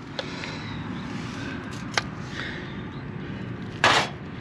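Rusted steel conduit pipe handled in a gloved hand, with a sharp click about two seconds in and a short scraping rustle near the end, over a steady low background noise.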